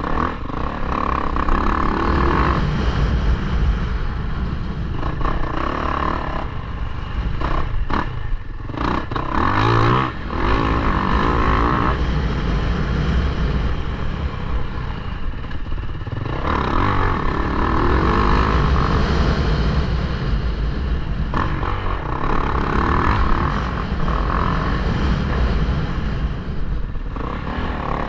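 Yamaha YZ450F motocross bike's single-cylinder four-stroke engine revving up and down with the throttle under hard riding, heard from a helmet-mounted camera.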